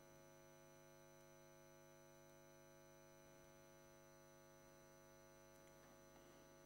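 Near silence with a faint steady electrical mains hum.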